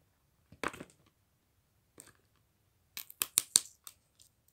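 Fingernails picking at and peeling tape from the seam of a large plastic surprise egg: a short crisp scratch about half a second in, then a quick run of clicks and scratches around three seconds in.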